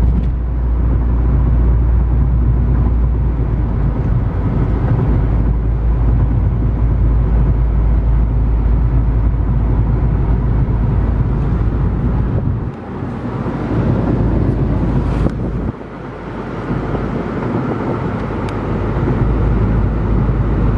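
Car cabin noise: a steady low rumble with the air-conditioning blower running on max. The noise dips briefly twice in the second half, then builds back.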